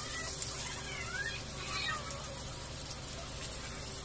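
Chicken pieces deep-frying in hot oil in a wok, a steady sizzle; the pieces are done and being lifted out with tongs.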